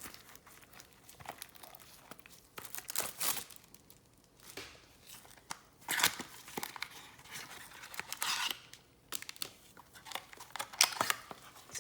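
Trading-card pack wrapper being torn open and crinkled by hand, in irregular rasping bursts.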